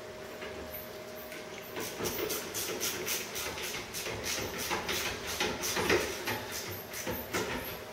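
Wrought-iron balusters being worked by hand at the handrail: a run of irregular metallic clicks and taps that starts about two seconds in.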